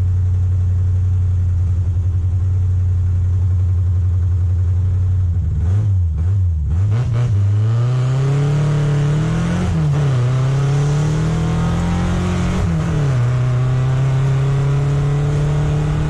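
Triumph Spitfire's four-cylinder engine running hard during an autocross run. It holds a steady note for about five seconds, then the revs dip and climb back three times, and it settles at a higher steady pitch near the end.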